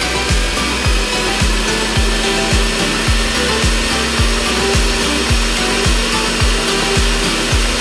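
Background electronic music with a steady bass drum beat, held tones and sweeping synth sounds.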